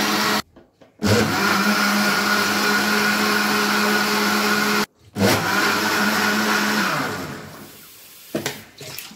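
Electric countertop blender blending strawberries with water, running with a steady hum in three stretches separated by two brief stops. Near the end the motor winds down and stops, followed by a few light clicks.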